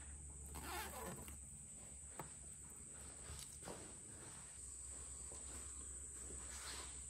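Hands handling parts and wiring in an engine bay: a few soft rustles and a small sharp click about two seconds in. Under it runs a steady high-pitched whine and a low hum.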